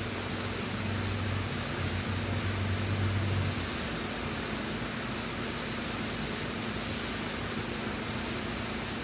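Steady background hiss with a constant low tone, and a deeper hum that swells for a couple of seconds about a second in and then drops away.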